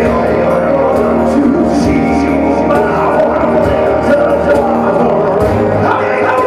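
Live unplugged band playing: acoustic guitars over held keyboard chords, with light percussion hits.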